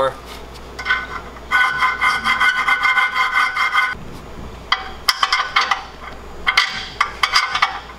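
Hand file rasping back and forth in a steel frame hole on a Ram Rebel pickup, in several bursts of quick strokes with a metallic ring, the longest about 1.5 to 4 seconds in. The hole is being opened up just enough for a half-inch carriage bolt, which is 1 mm larger than the stock bolt, to slide through.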